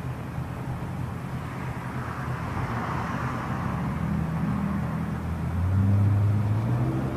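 A steady engine hum from a vehicle or machine running, which grows louder over the last couple of seconds.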